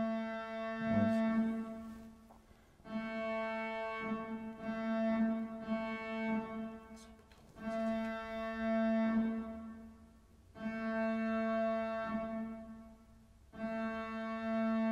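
Lunetta logic-chip synthesizer's first square-wave oscillator droning on one pitch, rich in overtones. It comes in repeated notes of about two to three seconds that swell and fade with short gaps between them, played through the effects block's reverb preset.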